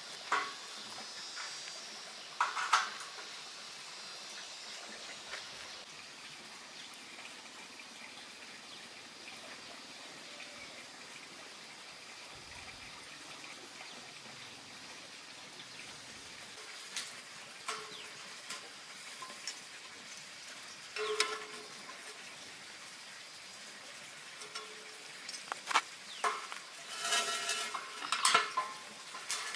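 Scattered light clinks and knocks of hard objects being handled, a few at a time with long gaps, bunching into a quick run of knocks near the end, over a faint steady hiss.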